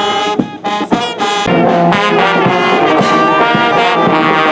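School brass band of trumpets, trombones and euphonium playing, with a steady beat for about the first second and a half, then held notes.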